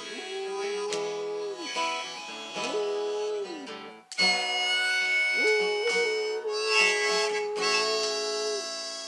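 A dog howling along with a harmonica, in three long notes that each slide up at the start and drop away at the end, the last one the longest. The harmonica chords get louder about four seconds in.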